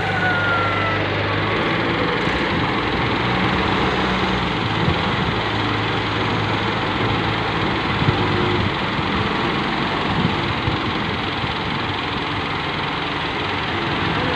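Diesel engines of a wheeled Hitachi excavator and a red farm tractor running steadily as the excavator loads earth into the tractor's trolley, with a steady low hum and a few light knocks.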